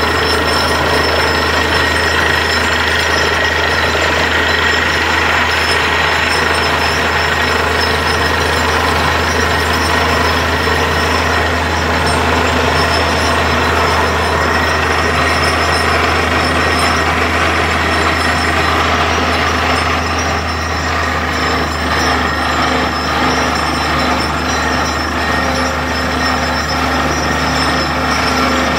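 Truck-mounted borewell drilling rig running steadily under load while it drills, its engine and compressed air blowing water and slurry out of the bore around the casing in a constant gushing spray. The noise eases slightly about two-thirds of the way through.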